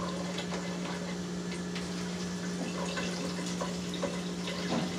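Water splashing steadily into a kitchen sink as the hot cooking water is drained off a bowl of instant noodles, with small clinks and a steady low hum under it.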